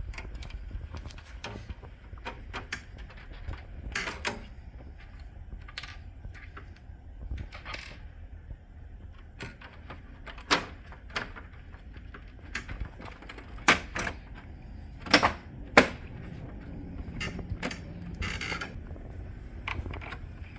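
Plastic side covers of a laser printer being fitted back on: scattered clicks, taps and light rattles as the panels are handled and snapped into place, with a few sharper snaps in the second half.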